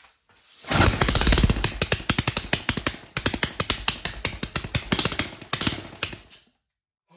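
Homemade 3D-printed 180cc single-cylinder four-stroke engine on a start attempt, firing in a fast string of sharp pops for about six seconds, faltering briefly twice, then stopping.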